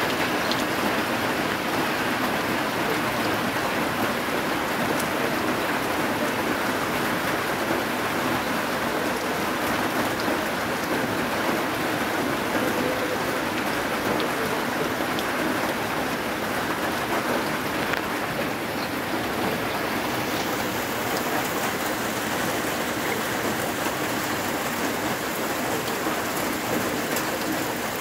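Heavy typhoon rain pouring steadily onto a flooded rice paddy and its standing water.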